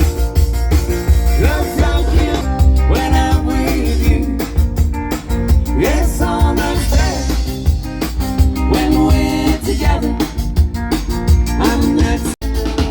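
Background music: a song with guitar, drums and a singing voice.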